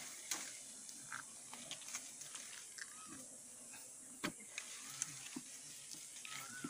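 Irregular soft clicks and crackles of a long knife blade working at a wild honeycomb, with one sharper click about halfway through, over a steady faint high hiss. A few short chirps sound near the middle and the end.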